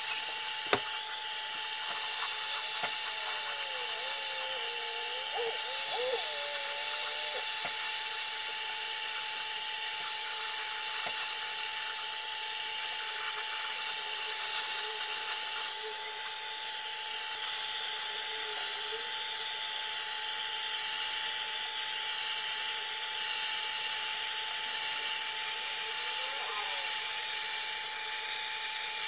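Handheld butane blowtorch flame hissing steadily as it is swept over a pine board to char the surface.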